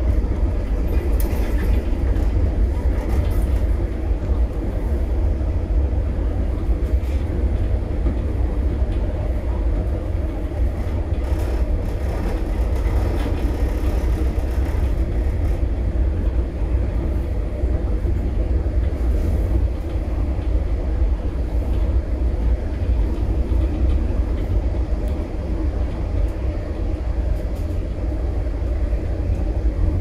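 Steady low rumble of a moving vehicle running without a break.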